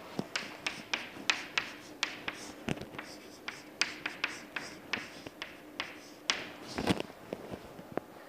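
Chalk tapping and scratching on a chalkboard as a formula is written out: a string of short sharp taps, two or three a second, with a louder knock about seven seconds in.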